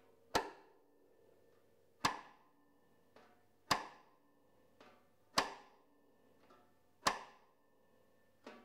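Sonor Artist Earth 13x5 snare drum with a 28 mm beech shell played cross-stick: five sharp rim clicks, evenly spaced about one every 1.7 seconds, each dying away quickly, with softer strokes in between.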